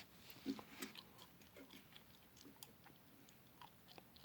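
Near silence, with faint scattered clicks and small handling noises.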